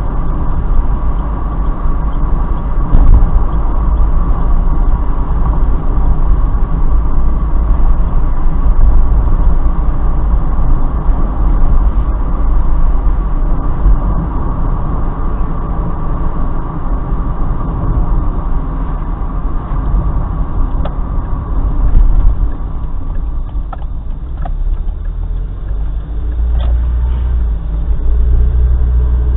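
Mazda Roadster (MX-5 Miata) driving at about 45 km/h, with engine and tyre noise heard from inside the cabin as a steady low rumble. The sound changes near the end as the car slows down.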